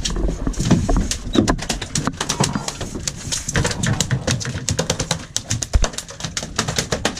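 A freshly caught blackfin tuna thrashing on a fiberglass boat deck, its tail drumming in rapid, uneven knocks.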